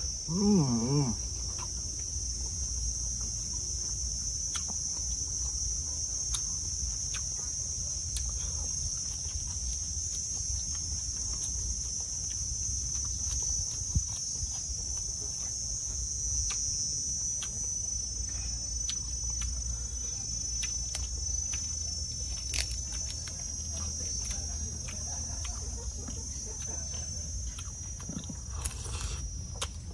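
Insects chirring in a steady, high, even buzz throughout. A short hum from a person's voice comes about half a second in, and small clicks of eating and chewing are scattered through.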